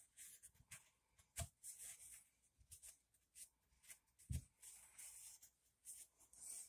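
Paper towel rubbing in short, scratchy wiping strokes over a small outboard engine block, faint, with two soft knocks about one and a half and four and a half seconds in.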